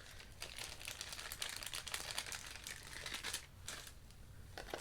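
Packaging crinkling and rustling as items are handled, busiest in the first three and a half seconds, then quieter, with a short click near the end.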